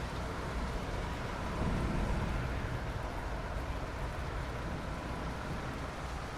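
Steady rain, an even hiss with a low rumble beneath it that swells slightly about two seconds in.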